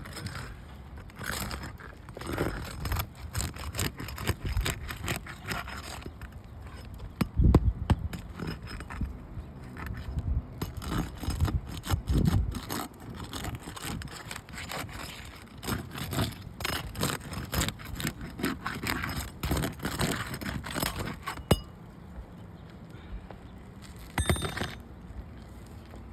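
Hand tools working on an asphalt roof shingle: a metal pry bar scraping and levering under the shingle with irregular knocks and taps, working loose a creased, damaged shingle for repair.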